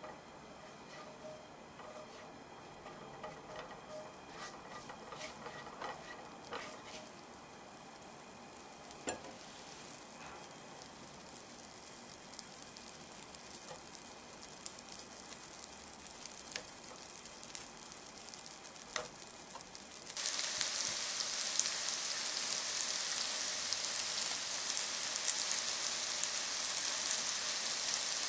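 Butter sizzling faintly in a frying pan, with a few light knocks as sweet potato mochi patties are laid in. About two-thirds of the way through, the sizzle jumps suddenly to a loud, steady crackling fry as the patties cook in the hot butter.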